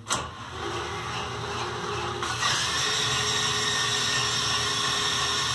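Power drill spinning a rewired LG washing-machine motor that is being used as a generator, starting with a click and running up. About two seconds in it steps up to a louder, higher-pitched run as the generator takes load, pushing about 3 amps into the batteries.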